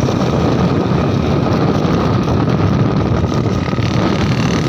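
Car driving slowly, heard from inside: a steady low rumble of engine and road noise.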